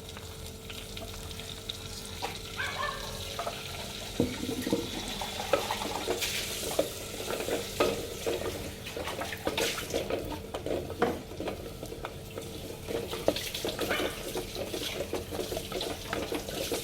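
Masala frying in a clay pot, sizzling, while a spoon stirs it; from about four seconds in, the spoon scrapes and knocks against the pot over and over.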